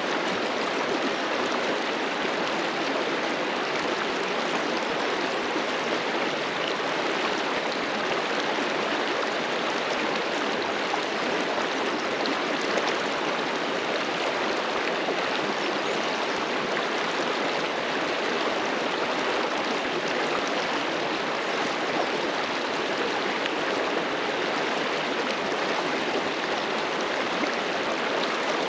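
A river flowing over rocks: a steady rushing of water.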